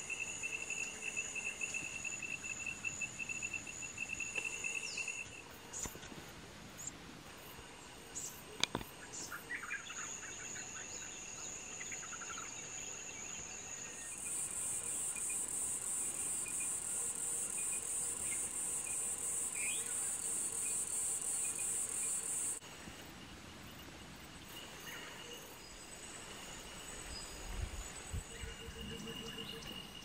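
Rainforest insects buzzing and trilling: a fast pulsing high trill over a steady high whine for the first five seconds, then, about fourteen seconds in, a loud, dense, very high buzz that runs for about eight seconds and cuts off suddenly. A few short bird chirps come in around ten seconds.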